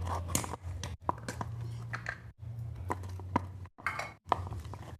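Homemade slime being kneaded and pulled by hand, with irregular sticky clicks and snaps; the slime is still tacky and clinging to the hands. A low steady hum runs underneath.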